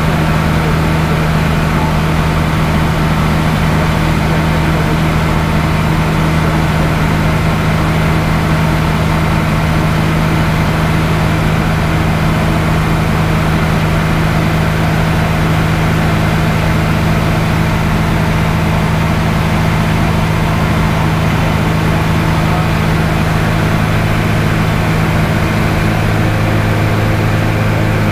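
Light aircraft's piston engine and propeller droning steadily in cruise, heard from inside the cockpit.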